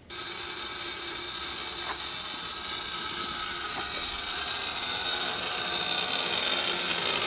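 1914 Ford Model T's trembler ignition coils buzzing steadily. The buzz starts abruptly as the ignition switch is turned on and grows gradually louder.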